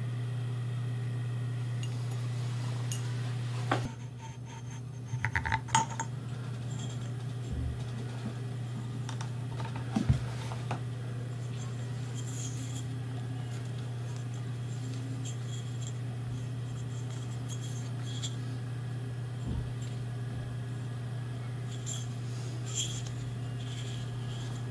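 Metal parts of a Sony U-matic video head drum being handled while it is taken apart: scattered light clinks and scrapes of metal, a cluster about five to six seconds in and a sharper clink near ten seconds, over a steady low hum.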